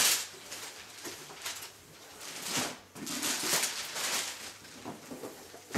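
Wrapping paper being torn and crumpled off a cardboard toy box, in several short rustling bursts.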